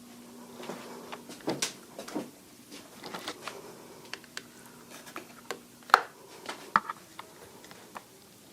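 Electric fan's motor humming steadily among scattered clicks and knocks of handling; a sharp click about six seconds in, where the hum stops, as the fan is switched off.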